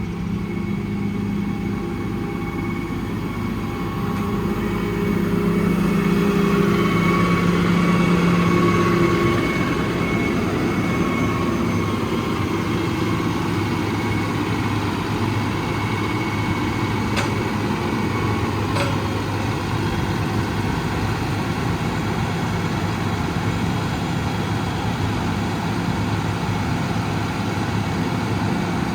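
The truck's 6.7 L Cummins ISB diesel engine running steadily. It gets louder for several seconds about four seconds in, with a faint whine above the engine note. Two short clicks come about two-thirds of the way through.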